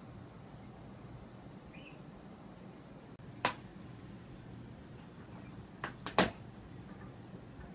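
A steady low hum with a sharp click about halfway through and a quick run of three or four sharp clicks about six seconds in.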